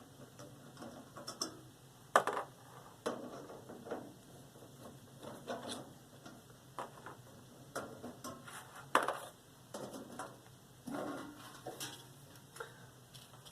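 Irregular metallic clicks, rattles and knocks as the sheet-metal access panel of a Goodman gas furnace is handled and taken off. Two sharper knocks come about two seconds in and about nine seconds in.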